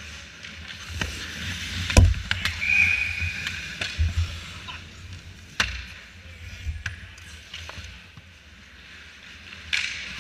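Ice hockey skates scraping and carving the ice close to the net, with sharp clacks of sticks and puck; the loudest clack comes about two seconds in, followed by a brief high squeal, with more clacks near the middle and near the end.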